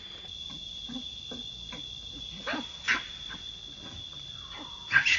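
Baby macaque giving a few short squeals and cries, loudest about three seconds in and near the end, over a steady high drone of insects.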